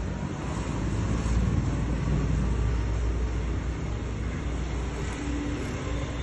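A 6 ft lathe running steadily, a continuous low mechanical rumble.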